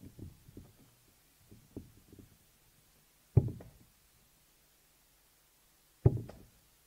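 Steel-tip darts striking a Winmau Blade 6 bristle dartboard: two sharp thuds about two and a half seconds apart, each dying away over about half a second. Before them, a few lighter knocks and scrapes as darts are pulled out of the board.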